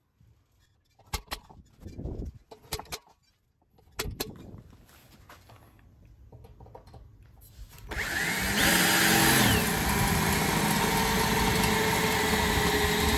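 A few sharp clicks from a centre punch marking the steel sill panel. About eight seconds in, a Ryobi cordless drill spins up with a rising whine and runs steadily, drilling through the steel.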